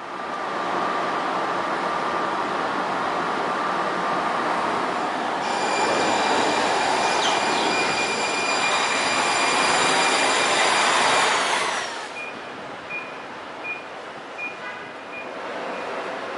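Light-rail train passing close by: a rising rush of wheels and motors, joined about five seconds in by a steady high whine that cuts off sharply about twelve seconds in as the train goes by. After it, short high beeps repeat under quieter street noise.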